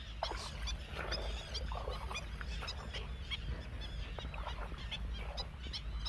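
A flock of wetland birds calling: many short calls, scattered and overlapping, over a steady low rumble.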